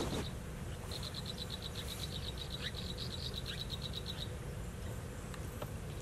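Nestling birds begging: a rapid high-pitched trill of cheeps, about nine a second, starting about a second in and stopping after about three seconds, over a steady low rumble.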